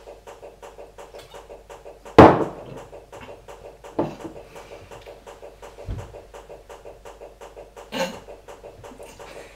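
A hard, sharp knock with a short ringing tail about two seconds in, then three fainter knocks or thuds about two seconds apart, over a fast, even ticking and a steady low hum.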